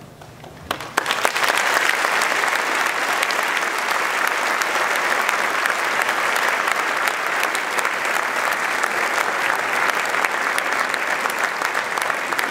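Concert audience applauding, breaking out about a second in and holding steady: the applause at the end of a choral performance.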